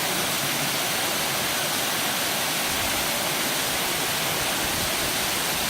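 Steady rushing of water pouring down a limestone cascade waterfall.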